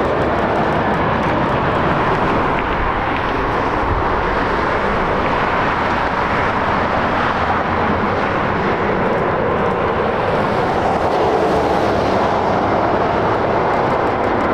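Airbus A320-200 jet airliner on final approach with landing gear down, its jet engines making a steady, loud rushing noise that holds at an even level.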